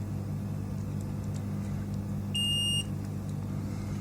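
Multimeter continuity beep: one high tone lasting about half a second, a little past halfway, over a steady low hum. In continuity mode the beep marks a near-zero-resistance path, here the short still present on the power-supply board.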